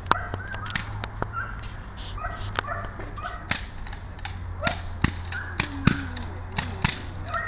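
Belgian Malinois barking repeatedly at a protection-work decoy, short barks in quick, uneven succession.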